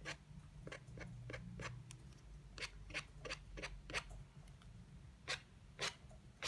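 Edge of an old plastic card scraped in short, quick strokes against wet watercolour paper to scratch light lines into the paint, giving a run of irregular scratchy clicks, the loudest near the end.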